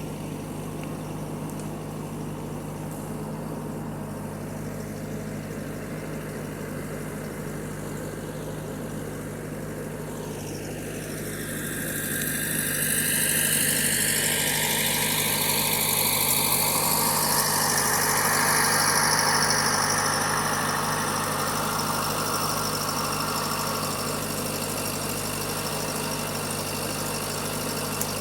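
Case 1845 skid steer engine running steadily at idle; about ten seconds in, a whine rises in pitch and the sound grows louder, holding for several seconds before easing back a little.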